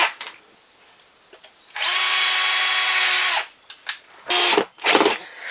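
Power drill driving screws into a thin plywood wall panel: a steady whine of about a second and a half starting a couple of seconds in, then two short bursts near the end.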